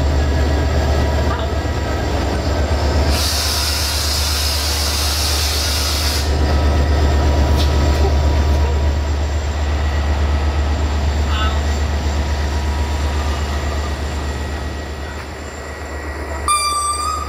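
Diesel locomotive engine running with a steady low rumble. A burst of air hiss comes about three seconds in and lasts some three seconds, and a brief high-pitched squeal sounds near the end.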